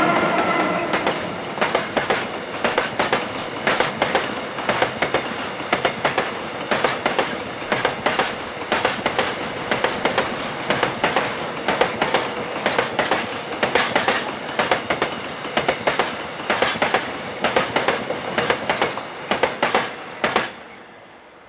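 Freight train of open wagons rolling past, the wheels clicking over rail joints in regular repeating clusters over a steady rumble. A horn note dies out in the first second, and the sound fades away as the last wagon goes by near the end.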